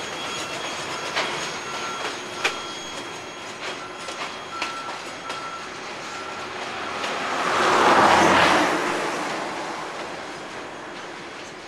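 Container wagons rolling slowly over rail joints and points behind a shunting locomotive: wheels clicking irregularly, with a thin steady wheel squeal through the first half. A louder rushing noise swells and fades about eight seconds in.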